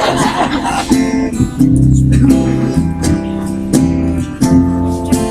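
Acoustic guitar strumming the slow intro of a cowboy song, with deep bass notes changing about once a second.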